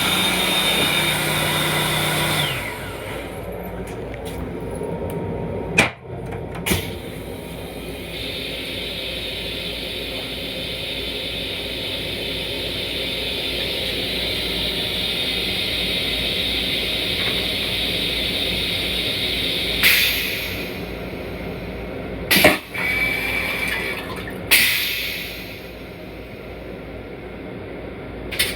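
Toilet in a Long Island Rail Road M7 railcar restroom flushing: a steady rushing hiss for about twelve seconds. Several sharp clicks and knocks sound before and after it, over a steady low rumble.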